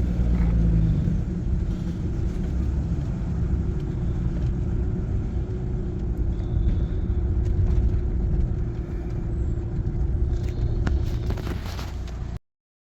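A van driving, heard from inside the cab: steady engine and road rumble with a faint constant hum. It cuts off suddenly near the end.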